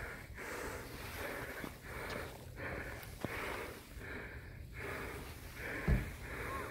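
Rhythmic, heavy breathing close to the microphone, with a short pulse of breath about every half second or so. A single low bump about six seconds in.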